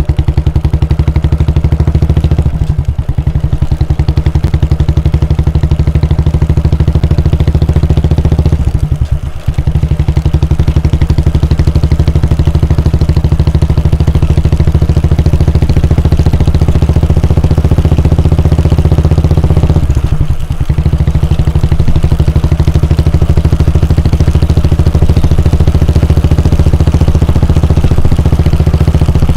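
Royal Enfield Bullet 350's 349 cc air-cooled single-cylinder engine idling at a steady, even speed with its stock exhaust thump. The level dips briefly three times, about 3, 9 and 20 seconds in.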